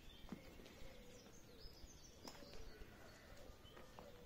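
Near silence: faint outdoor ambience with a few scattered bird chirps and a couple of faint clicks.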